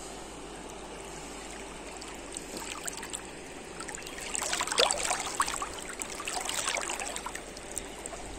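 Shallow river current rippling and gurgling, with a stretch of louder splashing and lapping of water from about halfway through.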